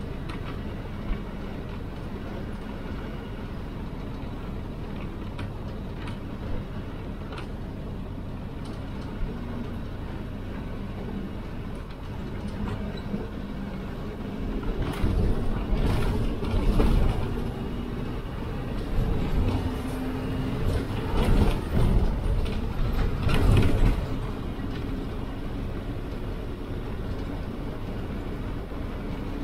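Inside a moving bus: the steady rumble of the engine and road, with wind noise and small cabin rattles. About halfway through the ride noise grows louder in uneven surges for several seconds, then settles back to the steady rumble.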